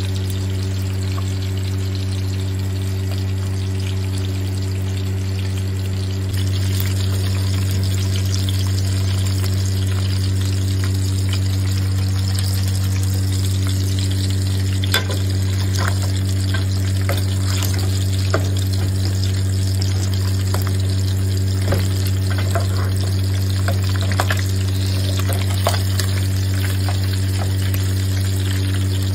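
Chicken pieces sizzling in hot oil in a frying pan. From about halfway, a metal spoon scrapes and knocks against the pan at scattered moments as the pieces are turned and basted. A steady low hum runs underneath throughout.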